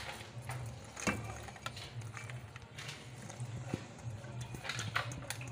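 Boiled corn kernels tipped and pushed out of a steel bowl into a cooking pot, with scattered light clicks and taps of metal, over a low steady hum.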